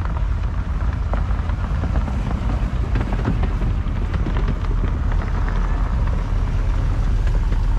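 A Jaguar XJS driving slowly past at close range, its engine running low and steady and growing gradually louder as it nears.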